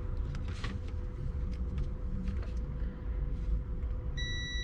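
A multimeter's continuity beeper starts a steady high-pitched tone near the end, the sign that the wire being probed has continuity. Before it, only a low steady background rumble and a few faint clicks.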